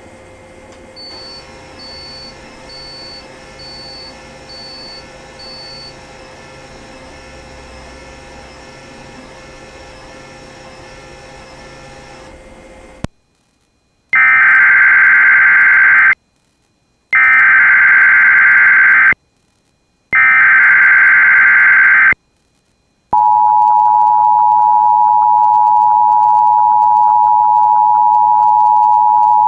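Emergency Alert System activation. Faint background audio with a few evenly spaced beeps cuts out suddenly about halfway through; then come three loud bursts of warbling SAME digital header data, each about two seconds with a second's gap between, coding a Child Abduction Emergency. Near the end the steady two-tone EAS attention signal begins and holds.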